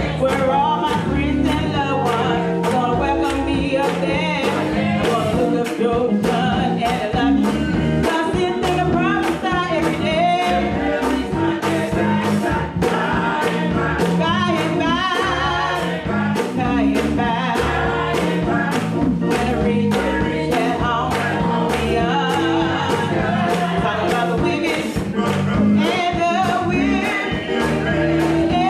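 Church gospel choir singing with a live band, voices held and wavering over a steady drum beat.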